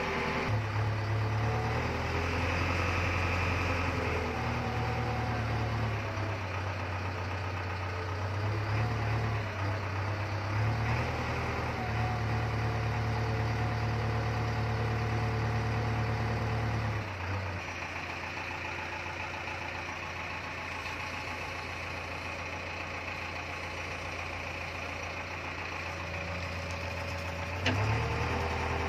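JCB 3DX backhoe loader's diesel engine running, working harder and varying for about the first seventeen seconds, then settling to a steady idle. A single sharp click comes near the end.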